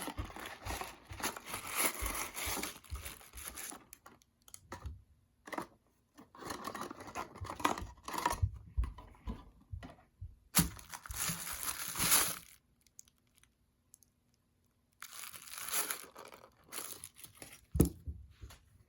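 Toy packaging being torn open and crinkled in bursts of several seconds, with short pauses between them and a few sharp snaps.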